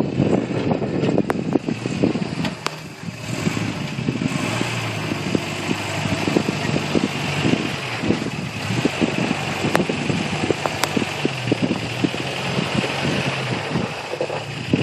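Lifted 1987 Toyota 4Runner's engine running at low revs as the truck crawls through deep mud ruts, with many short, irregular cracks and clicks over it.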